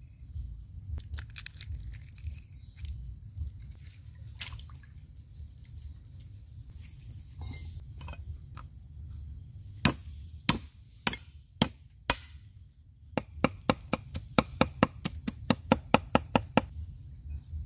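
Heavy cleaver striking a round wooden chopping board while chopping garlic cloves: a few separate knocks about ten seconds in, then a quick, even run of chops at about five a second.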